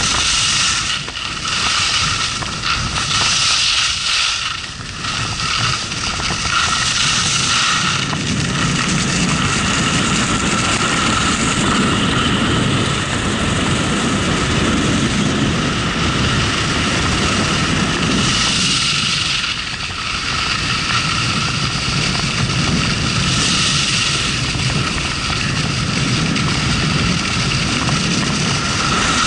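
Wind rushing over a moving camera's microphone during a downhill ski run, with skis hissing on the snow that swells in several louder surges.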